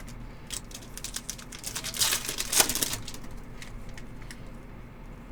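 Trading card pack wrapper crinkling and tearing as a hobby pack is opened and the cards are handled, with a louder burst of crackling about two seconds in.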